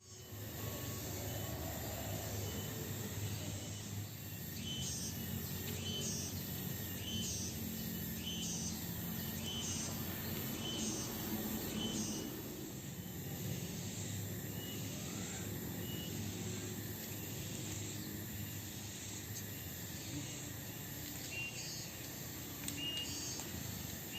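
Outdoor rural ambience: wildlife chirping in short calls repeated every second or so, over a steady low background noise.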